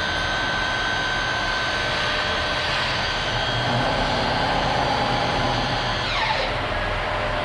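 Fadal 6030 vertical machining center running under power: a steady mechanical hum and whine with hiss. About six seconds in, a whine falls quickly in pitch, as when the spindle slows down.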